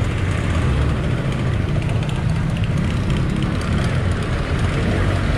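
Street traffic heard from a motorcycle moving slowly through it: a steady low engine rumble with road noise, from a jeepney and motorcycles close alongside.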